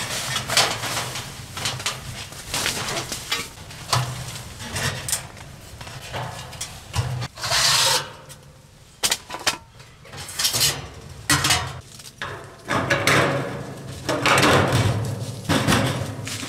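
Camping gear being handled while a winter tent is set up: irregular knocks and clinks mixed with bursts of rustling.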